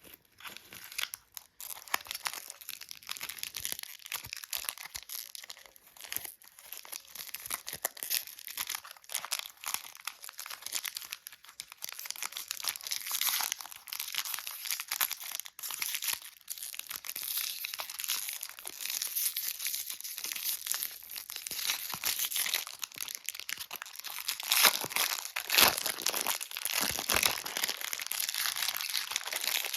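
Plastic lollipop wrappers crinkling and tearing as they are handled, a dense run of small crackles with a few louder crunches about twenty-five seconds in.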